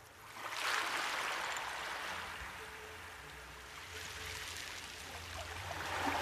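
Rushing water sound effect, like a stream, swelling about half a second in, easing off, then swelling again near the end, over a steady low hum.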